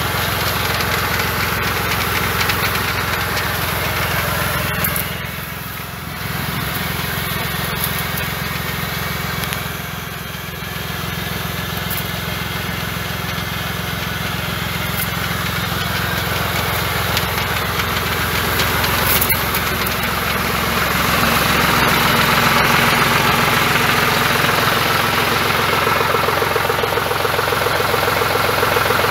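Başak 2043 tractor engine running steadily, driving a Doğanşahin sprayer's D120 piston pump, with a strong hiss of spray from the high-pressure nozzles. The level sags briefly twice, and the hiss swells louder about two-thirds of the way in.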